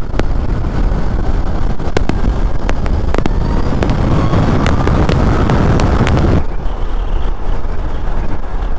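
Wind rushing over the microphone and tyre roar as a Zero SR/S electric motorcycle accelerates in sports mode, with a faint rising electric-motor whine. The rush drops suddenly about six seconds in.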